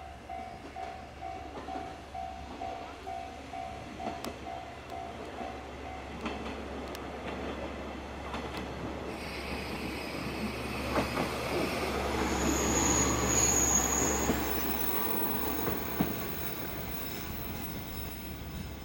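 KiHa 120 diesel railcar running into the platform: its engine and wheels rumble louder as it approaches, with a high, steady brake squeal as it slows, then it settles to a low diesel hum at a stand. For the first six seconds a warning chime repeats about twice a second.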